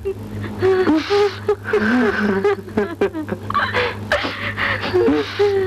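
A high-pitched voice vocalising in uneven, drawn-out phrases, with one long held, slightly falling note near the end, over a steady low hum.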